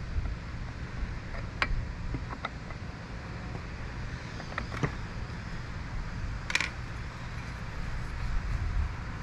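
Scattered light clicks and one brief scrape from the metal tines of a cordless garden cultivator being handled and fitted onto its shaft, over a low steady rumble.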